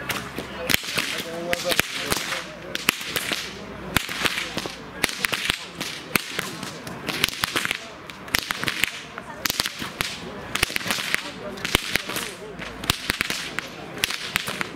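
Hungarian karikás herdsman's whips being cracked in rhythmic whip-cracking (csergetés): a fast, unbroken string of sharp cracks, several a second.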